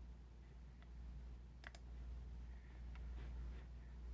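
A few faint clicks from a computer's keys or buttons, with a sharp double click about one and a half seconds in, over a low steady hum.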